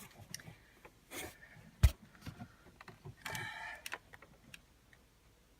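Light clicks and handling noises with one sharp knock a little under two seconds in, from hands and tools working on parts under a car's dashboard.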